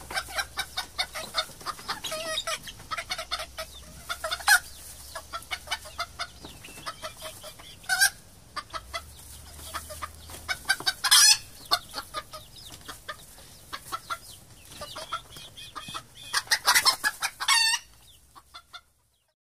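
Flock of domestic hens clucking, a quick run of short calls with a few louder, longer calls now and then. The sound fades out about a second before the end.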